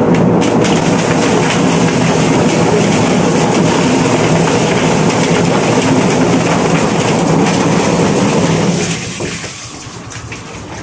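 Drum-type chicken plucker running with scalded broilers tumbling inside against its rubber plucking fingers: a steady motor hum with rattling and clatter, while water is poured into the drum. The noise drops off about nine seconds in.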